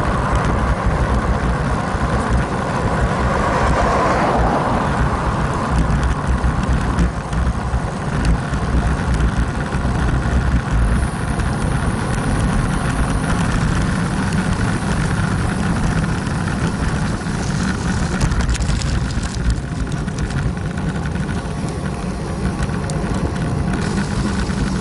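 Wind buffeting the microphone of a handlebar-mounted camera on a road bike at speed, a steady heavy rumble, with tyre and road noise underneath.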